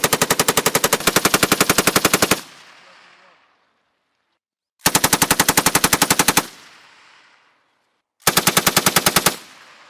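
Belt-fed machine gun firing three bursts of automatic fire at about ten rounds a second. The first burst is already going and stops about two seconds in, a shorter one comes about five seconds in, and a brief one near the end. Each burst is followed by a fading echo.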